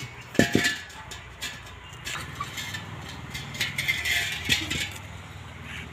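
Steel LPG cooking-gas cylinder clanking twice with a short metallic ring about half a second in, then scraping and knocking on concrete as it is tilted and walked along on its base rim.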